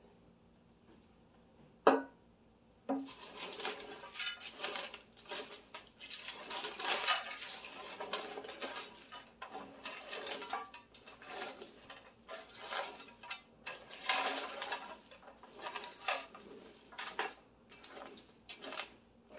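A large batch of dry Chex party mix (cereals, pretzel rounds and nuts) being stirred with a spatula in a big electric roaster pan to coat it with seasoning: a steady crackly rustling and scraping that starts about three seconds in. Before it comes a single sharp click.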